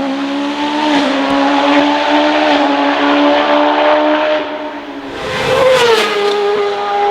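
Hillclimb race car's engine at high revs under full throttle, its pitch climbing slowly for several seconds. About five seconds in the sound dips, then swells again, and the pitch drops to a lower steady note near the end as the car changes up.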